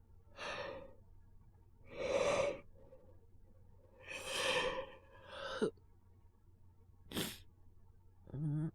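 A man with a cold coughing in several short bursts with breaths between them, one short sharp cough about seven seconds in, and a brief low voiced groan near the end.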